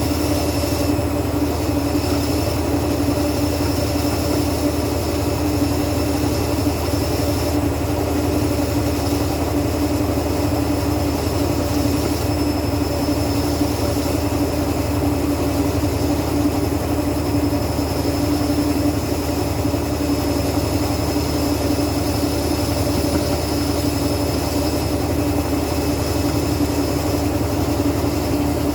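A machine running with a steady hum and a constant low tone, unchanging throughout.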